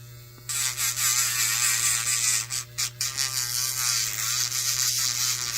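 Electric nail drill running at 10,000 RPM with a 180-grit sanding band: a steady motor hum, and about half a second in the band starts sanding a nail tip with a loud, wavering gritty hiss.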